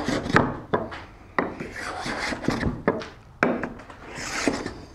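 Veritas cabinet scraper pushed across a wooden board in several short strokes, its blade scraping off thin curls of wood. Each stroke starts with a sharp tap as the tool is set down.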